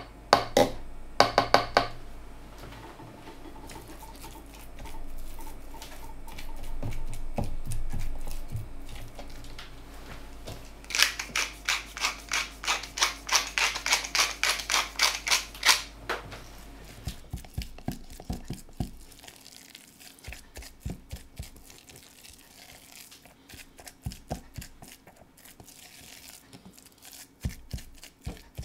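A hand pepper mill grinding black pepper over pesto in a plastic food-processor bowl: a quick run of crunching clicks, several a second, lasting about five seconds. Before it come a few sharp clicks of a spoon against the bowl, and after it come softer scattered taps and scraping of a spatula in the bowl.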